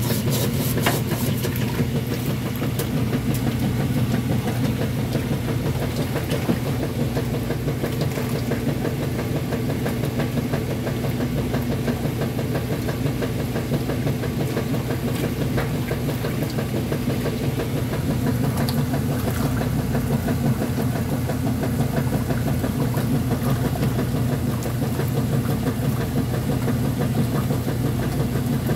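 Top-loading washing machine running with water in the tub: a steady, even motor hum that does not change.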